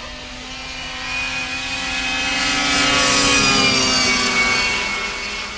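Racing snowmobiles at full throttle going past on a drag strip. The engine note swells to its loudest about three seconds in, then fades as the pitch drops a little.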